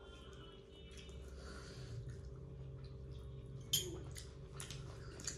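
Quiet eating sounds: chewing and fingers squishing rice and mutton curry on plates, with small scattered clicks over a faint steady hum. One sharp click, a little before four seconds in, is the loudest sound.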